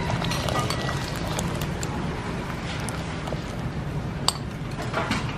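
Pot of water at a rolling boil under a steady low rumble, with scattered clinks and knocks of a wire mesh strainer against the pot, one sharp click about four seconds in.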